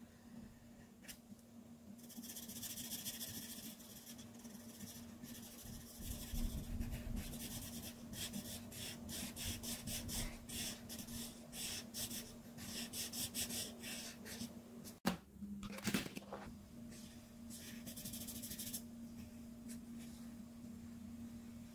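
Art marker tips drawn across paper in runs of quick, repeated scratchy strokes, over a steady low hum. Two sharp clicks come a little past the middle.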